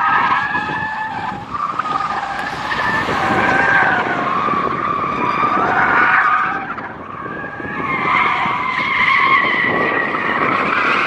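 Porsche's tyres squealing in long waves as the car is driven hard through autocross turns, the squeal easing off briefly twice before building again.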